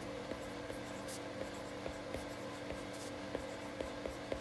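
Stylus tip tapping and sliding on an iPad's glass screen during handwriting: faint, irregular light ticks over a steady low hum.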